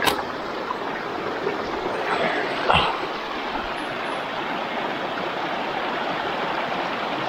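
A fast creek running high with snowmelt rushes over rocks in a steady, loud wash of water. A sharp click comes right at the start, and a short knock just under three seconds in.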